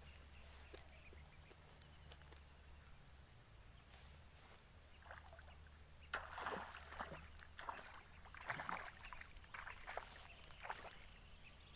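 Hooked snakehead fish thrashing and splashing at the water's surface: a run of irregular splashes starting about six seconds in and lasting about five seconds.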